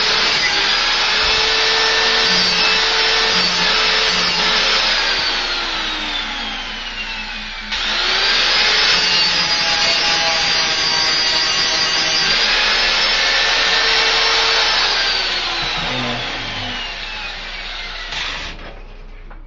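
A Makita 4-inch angle grinder with a sanding pad grinding the edge of a lawnmower blade. About five seconds in it is let off and winds down, its whine falling in pitch. It starts again with a rising whine and runs for several seconds, then winds down and stops near the end.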